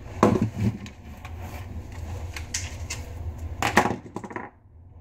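Handling noises: a scattering of short clicks and scrapes, with a louder rasping scrape a little before the end.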